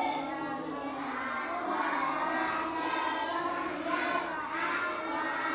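A group of young children reciting prayer words aloud together, a continuous chant of many overlapping voices.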